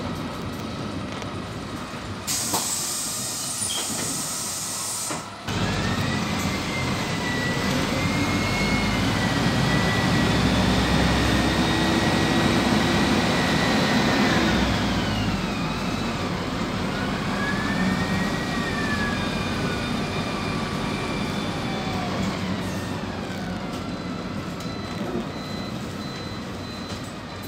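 PAZ 320414-14 bus: a hiss of compressed air for about three seconds that cuts off sharply, then the bus pulls away, its engine getting louder and a drivetrain whine rising in pitch, dropping about halfway through, rising once more and then falling away.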